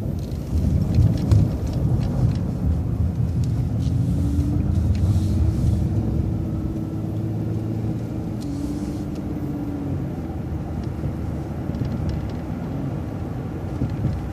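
Transit bus engine running under way as the bus pulls out and turns, a steady low rumble with a whine that rises in twice.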